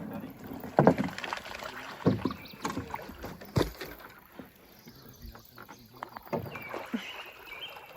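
Canoe on the water, likely the 16-foot Swift Prospector: sharp knocks against the hull, about four in the first four seconds, then quieter paddling.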